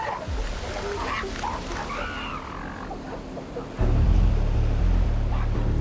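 Northern elephant seals calling, with rising and falling cries in the first two seconds, over a deep low music drone that swells suddenly louder about four seconds in.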